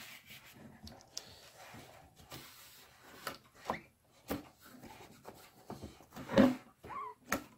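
A framed carnival mirror's glass being wiped clean after a spray of Windex: faint rubbing with a few light knocks against the frame. A dog whimpers briefly near the end.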